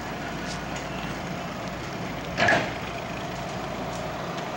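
A truck's engine running steadily at a distance, with one sharp knock about halfway through.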